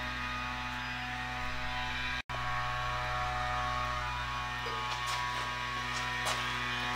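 Steady electrical mains hum, a buzz made of many even tones. It cuts out for an instant a little after two seconds in. A few faint ticks come near the end.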